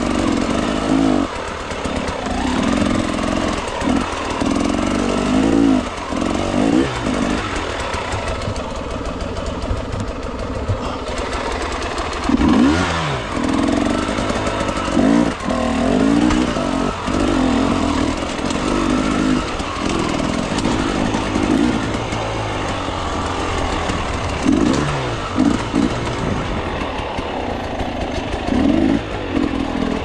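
KTM enduro dirt bike engine revving up and down in short throttle bursts, again and again, as it is ridden slowly over rocks.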